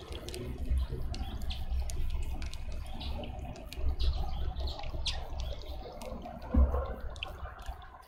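Water trickling and splashing, with many short high ticks scattered throughout over a low rumble, and one louder thump about six and a half seconds in.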